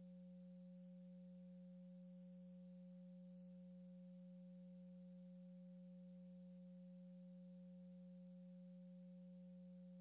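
Near silence with a faint, steady low hum at one unchanging pitch.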